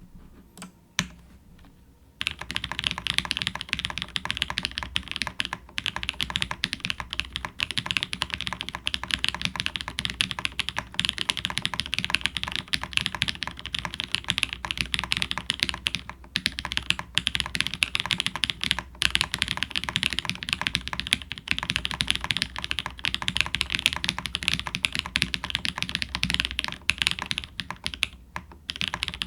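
TX65 custom 65% mechanical keyboard in a polycarbonate case with an aluminium plate being typed on, its linear Jwick switches fitted with Kailh red stems and lubed with 205g0, under GMK keycaps. A couple of single keystrokes come first, then fast, continuous typing from about two seconds in, with brief pauses.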